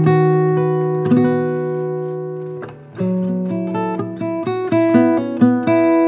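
GWG Guitars 00-size acoustic guitar with a Sitka spruce top and mahogany body. A chord rings out and slowly fades for nearly three seconds, then a new chord sounds and single notes are picked one after another.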